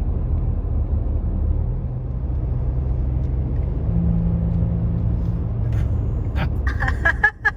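Car driving on the road, heard from inside the cabin: a steady low rumble of engine and tyres.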